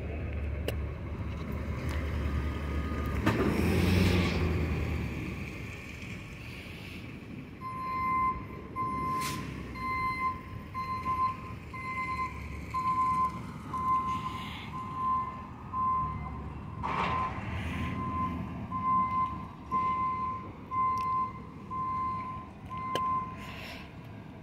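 Garbage truck's diesel engine running, swelling a few seconds in, then its reversing alarm beeping steadily about once a second for some fifteen seconds.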